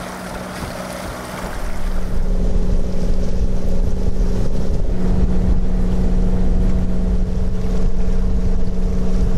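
Sailing yacht's inboard diesel engine running steadily under way, a constant hum, with wind rumbling on the microphone; it grows louder about a second and a half in.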